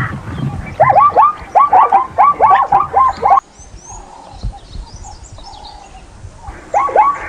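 An animal calling in a fast series of short calls, each falling in pitch, several a second. They cut off abruptly about three and a half seconds in, leaving faint high bird chirps, and start again near the end.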